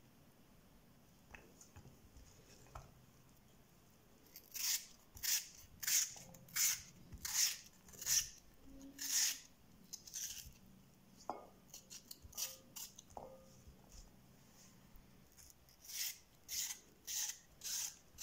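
Kitchen knife slicing raw potato held in the hand into thin sticks: a series of short, crisp cuts about one and a half a second. The cuts start about four seconds in, pause for a few seconds after the middle, and resume near the end.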